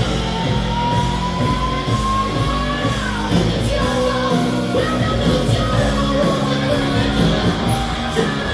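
Rock music with a singer, loud and steady; a long held sung note slides slowly upward over the first three seconds.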